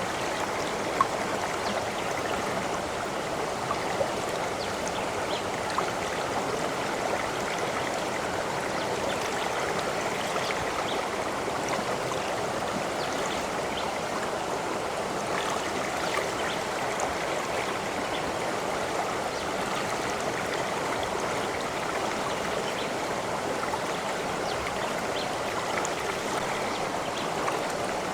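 Running water flowing steadily, with a few brief droplet plinks over the even rush, the clearest about 1, 4 and 6 seconds in.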